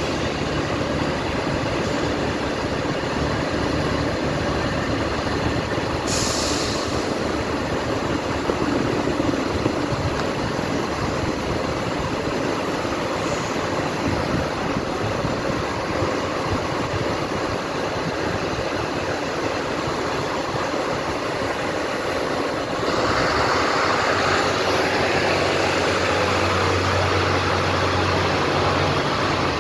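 Steady running noise of a train beside the platform. From about 23 seconds in it gets louder, with a steady low hum added: an SNCF X 73500 diesel railcar's engine running under power.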